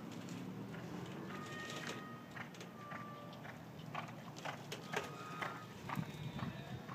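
Hoofbeats of a reining horse loping on soft arena dirt. The beats grow louder and sharper about halfway through as the horse comes close.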